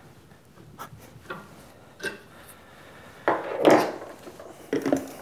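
Hands working an aluminium part and a steel alignment pin in a bench vise: a few light metal clicks, then a louder scraping rub about three and a half seconds in, and more clicks near the end.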